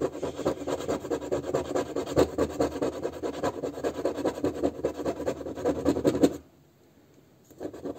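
A coin scratching the coating off an instant lottery ticket in rapid back-and-forth rasping strokes. The coating comes off poorly. The scratching stops abruptly a little over six seconds in.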